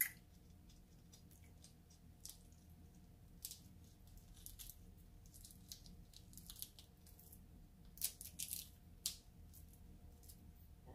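Faint close-up eating sounds of a person chewing shrimp: scattered short wet clicks and crackles, with a cluster of louder ones about eight to nine seconds in.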